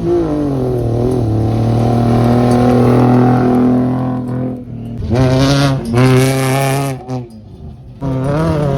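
Racing car engines revving hard: a high engine note that drops at the start and then holds steady, breaks off about four and a half seconds in, then a second rev climbs for about two seconds before cutting out, and another engine starts up near the end.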